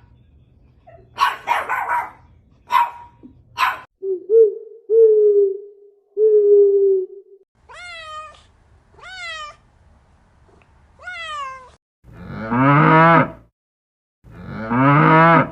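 A string of separate animal calls: a domestic cat meowing several times, with pitched, gliding cries, followed by two long cow moos near the end.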